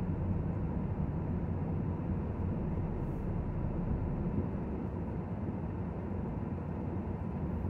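Car interior noise while driving slowly: a steady low engine and tyre rumble heard inside the cabin.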